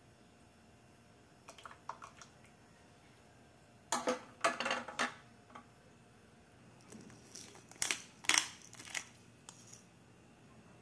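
Kitchen handling sounds: three clusters of short clicks and scrapes, the loudest about four and about eight seconds in, with faint room noise between them.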